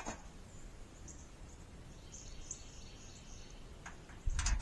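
Quiet outdoor ambience with small birds chirping faintly and high-pitched. Near the end a low rumble and a few sharp clicks begin.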